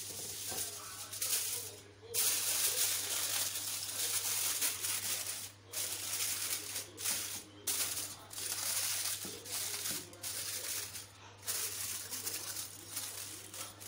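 Aluminium foil crinkling and rustling as it is stretched over a glass baking dish and crimped down around the rim, in irregular spells with short pauses.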